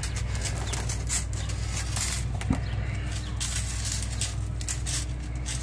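Electrical tape being pulled off the roll and wrapped around a rope knot on a steel fish tape: a series of short, crackly peels every second or so, over a steady low hum.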